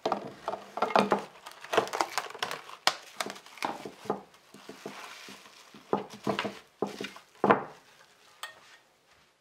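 Plastic cling film being pulled off its roll and stretched over a glass baking dish, making a dense run of sharp crinkling crackles. Near the end come a couple of knocks as the covered dish is handled.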